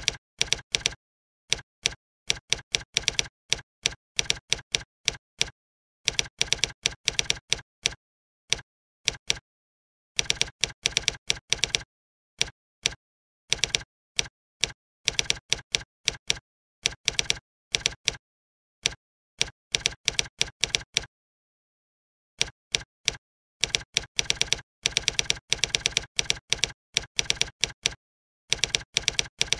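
Computer keyboard typing: quick runs of keystroke clicks separated by short pauses, with a longer pause about two thirds of the way through.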